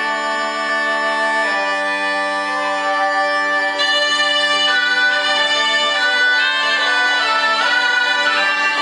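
Zampogna (southern Italian bagpipe) and ciaramella (shawm) playing a traditional tune together over a steady drone; the melody climbs higher about four seconds in.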